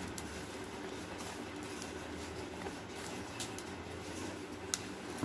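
Hands rubbing and squeezing crumbly flour, curd and oil dough in a plastic bowl: faint soft rustling over a steady low hum, with a light click near the end.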